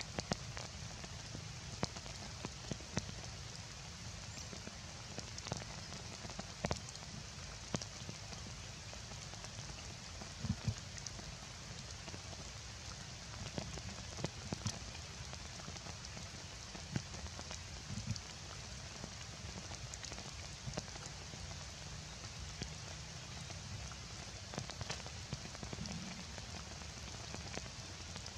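Heavy rain falling steadily, a constant hiss broken by many scattered sharp taps of drops striking close by.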